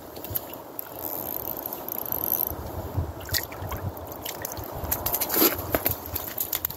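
Water splashing and sloshing in a hole in the ice as a hooked crappie is pulled up through it, with a few sharp clicks and the loudest splash a little after five seconds in.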